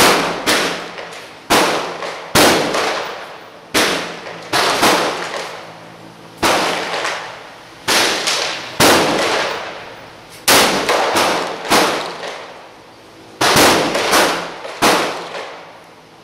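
Gunfire in an indoor shooting range: about fifteen loud shots at uneven intervals, some only half a second apart, each followed by a ringing echo.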